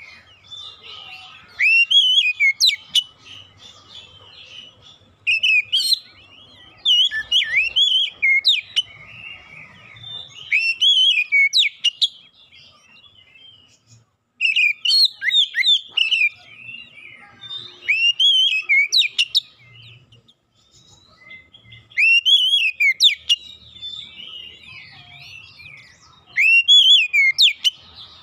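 Oriental magpie-robin singing in repeated short bursts of curving whistled notes, each phrase about a second long, coming every two to four seconds with brief pauses between.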